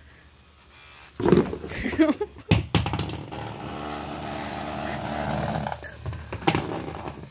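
A handheld electric back massager's motor buzzing steadily for a few seconds, after a run of loud knocks and clatters about a second in. A couple of sharp clicks near the end.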